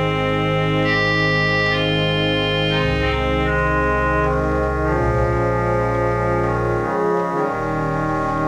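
Allen ADC-420 digital church organ playing a solo melody on its crumhorn stop dropped an octave below its normal range, which gives it a whole different timbre, over held chords. Low bass notes change a few times underneath.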